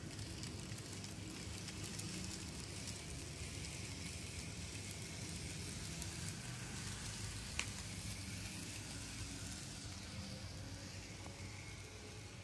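N-scale model train running on tight-radius Tomix Super-mini track: the locomotive's small electric motor hums steadily while the wheels make a fine, rapid crackle of clicking and rattling over the rails and joints. One sharper click stands out a little past halfway.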